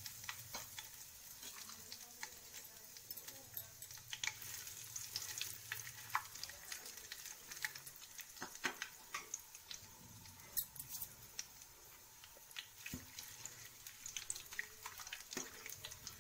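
Whole spices (bay leaf, cardamom, cloves, dried red chilli, black cumin) sizzling in hot mustard oil in a steel pan, with a steady hiss and many small scattered crackles and pops: the tempering (baghar) stage of a curry.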